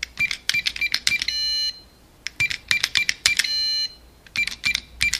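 Intro sound effect: runs of quick sharp clicks, each ending in a short bright chime, twice over, then another run of clicks near the end.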